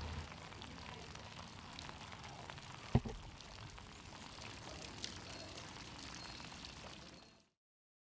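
Steady rain falling on floodwater. There is one sharp thump about three seconds in, and the sound cuts off near the end.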